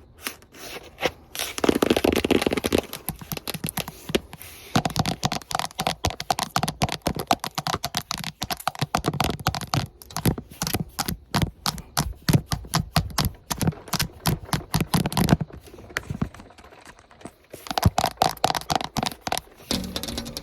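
Long fingernails tapping and scratching fast and hard on hard surfaces: rapid clicks in dense flurries, with a short lull near the end.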